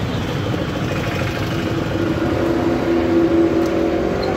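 Street traffic with a motor vehicle engine running close by, its hum growing louder about three seconds in.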